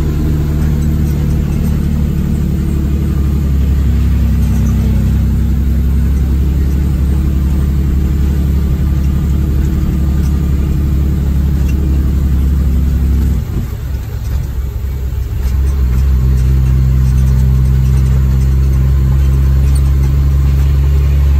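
Cummins ISM inline-six diesel in an International ProStar truck, running steadily under load. About two-thirds of the way through, the engine sound drops away briefly, then picks back up and runs steady again.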